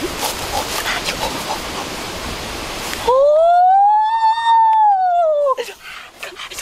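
One long, loud shout from a boy, rising and then falling in pitch, held for about two and a half seconds from about three seconds in. Before it there is a steady hiss with scattered clicks.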